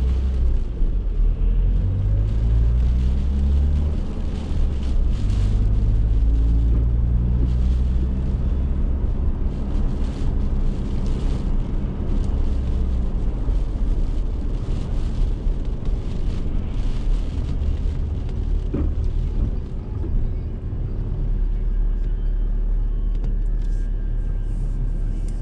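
Vehicle driving, heard from inside the cab: steady low engine and road rumble, with the engine's pitch rising several times in the first half as it accelerates. Strong gusty wind is blowing around the vehicle.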